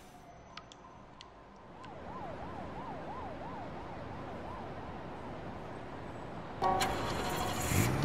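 A siren wailing up and down about twice a second, faint over a steady background hiss, with a few faint clicks before it. Near the end a sudden louder sound with several held tones cuts in.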